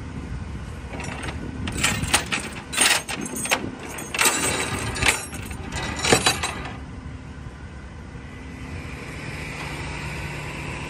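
Steel tow chain clinking and rattling against the steel deck as it is hooked around a box truck's axle, a string of sharp metal clinks that stops about two-thirds of the way through. A truck engine idles steadily underneath.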